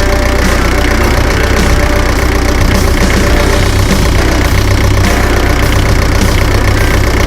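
A motor vehicle's engine running steadily at idle.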